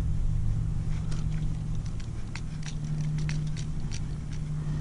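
Light, irregular clicking and ticking as the line spool of an ice-fishing tip-up is turned by hand, over a steady low hum.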